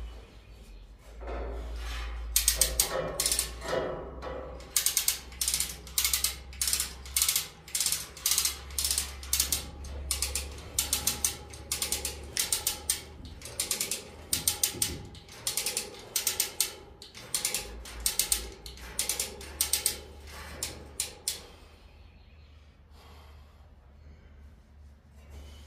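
Hand-operated chain hoist ratcheting under load as it lifts a steel pallet-rack upright: sharp metallic clacks about twice a second, starting about two seconds in and stopping a few seconds before the end.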